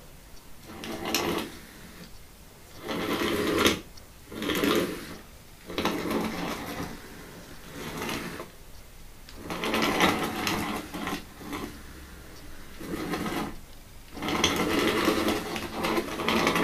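Small DC gear motors of a Magician robot chassis whining in short bursts, about eight times, each lasting a second or two, as the robot drives and turns.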